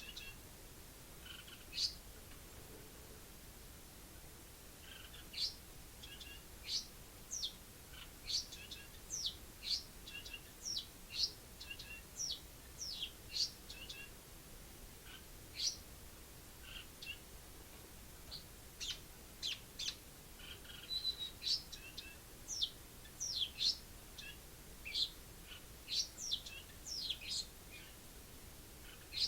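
Pet Eurasian tree sparrow singing: a long run of short, high chirps, most sweeping quickly downward, coming in irregular clusters with brief pauses between them.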